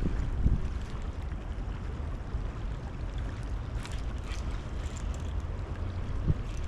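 Wind rumbling on the microphone over the steady rush of the high river, with a few faint clicks about four seconds in.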